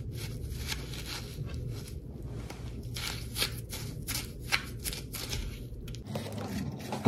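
Light rustling and clicking of hands handling food or its packaging, a quick run of irregular crisp ticks over a low steady hum that drops out about six seconds in.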